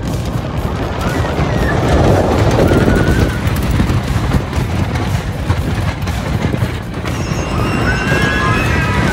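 Wooden roller coaster train clattering and rumbling along the track at speed, with wind rushing over the microphone. Riders scream briefly early on and again near the end.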